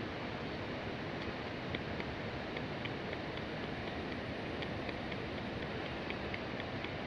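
Steady rushing wind noise on the microphone, with faint, irregular high ticks or clicks from about a second in.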